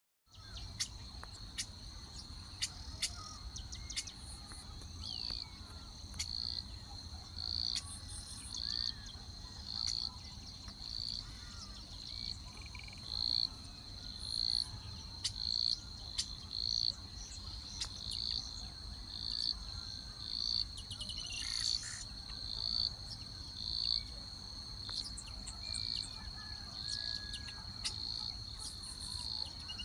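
Crickets trilling steadily at a high pitch, with a brighter chirp at the same pitch repeating a little under twice a second. Faint bird calls and a few sharp clicks are scattered through it, over a low rumble.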